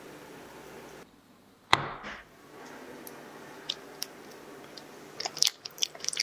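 Thick coconut milk pouring in a soft steady stream, then a single sharp knock a little under two seconds in. Near the end, a metal spoon clicks and taps quickly against a plastic bowl while scooping soft durian flesh.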